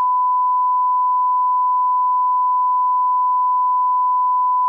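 Censor bleep: one steady, loud 1 kHz tone that starts abruptly and holds unchanged, masking a phone number as it is read out over the call.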